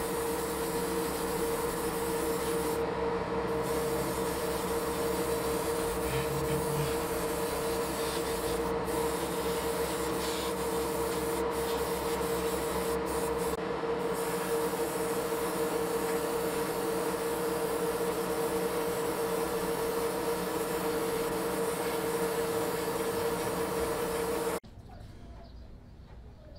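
Hobby paint spray booth's extractor fan running with a steady hum and a strong drone, under the hiss of an airbrush spraying paint. It stops abruptly near the end, leaving quiet.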